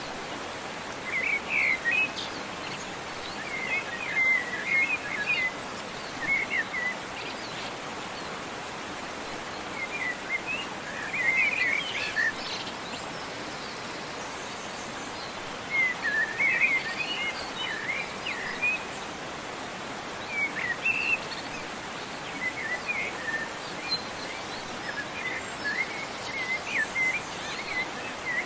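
Small birds chirping and twittering in short clusters every few seconds over the steady rush of a waterfall.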